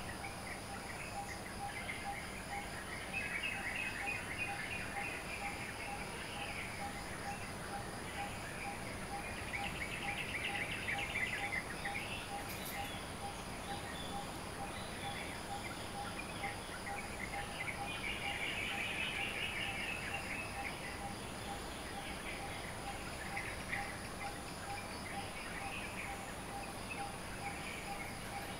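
Dawn chorus of tropical birds, with bouts of busy chirping and twittering that come and go over a steady faint pip repeated two or three times a second and a constant high whine.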